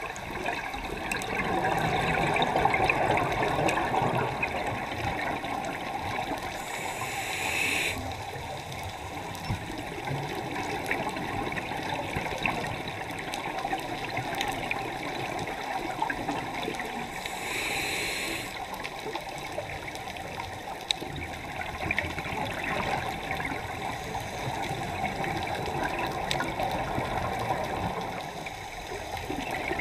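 Underwater sound heard through a camera housing: a scuba diver's regulator breathing, a steady wash of exhaled bubbles and water noise broken twice by a short hissing inhalation, about ten seconds apart.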